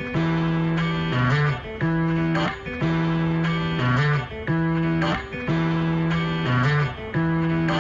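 Background music: an electric guitar playing held, strummed chords that change about once a second in a repeating pattern.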